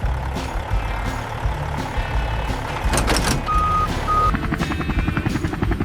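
Cartoon sound effect of a delivery truck: engine rumbling, with two short reversing beeps about three and a half seconds in, then a rapid buzzing motor starting up.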